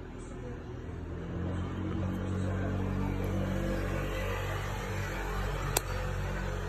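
Steady low hum of a motor-vehicle engine running close by, swelling about a second or two in and then holding. A single sharp click near the end.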